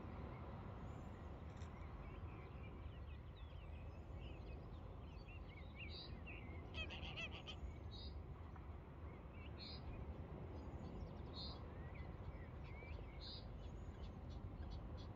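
Birds calling across open water: a short high call repeats every second or two, with scattered lower calls and a brief rapid rattle about halfway through, over a steady low rumble.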